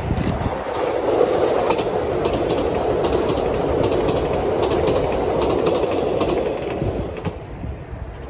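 485-series electric train ('Resort Yamadori') passing at speed: a steady rumble of wheels on rail with irregular clacks over the rail joints, fading away near the end as the train recedes.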